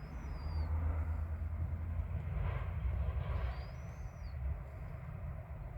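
High, short whistled glides from a bird, repeated a few seconds apart, over a steady low rumble.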